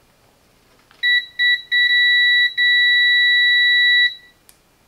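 Continuity beeper of a KAIWEETS HT208D clamp meter sounding as the test leads bridge a cable's conductor end to end: a few short broken beeps as contact is made, then a steady high beep lasting about two seconds that stops about four seconds in. The tone signals a closed circuit: the conductor is intact, reading near zero ohms.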